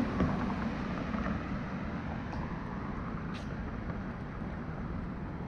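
Steady city street traffic noise, a continuous rumble of passing vehicles.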